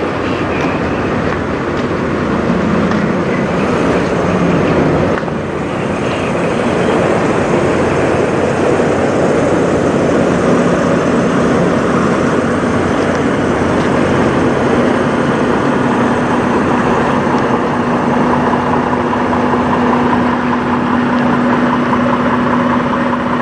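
Diesel semi-truck engines idling in a steady rumble. A steady hum joins in about ten seconds in.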